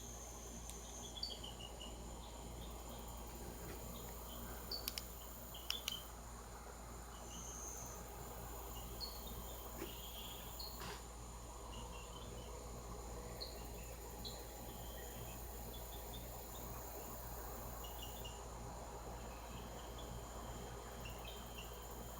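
Faint outdoor ambience: crickets drone steadily while birds give scattered short chirps. A few sharp clicks, like the phone being handled, come about five to six seconds in.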